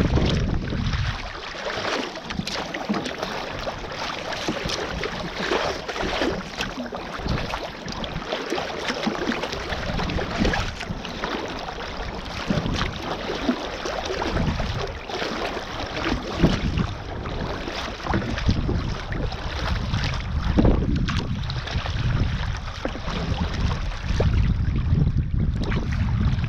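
Water splashing and slapping against the bow of a sea kayak as it is paddled through choppy sea, in an irregular run of splashes. Wind buffets the microphone at the start and again near the end.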